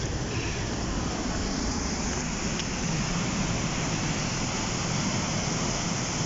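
Waterfall pouring through a narrow rocky gorge: a steady rush of falling water.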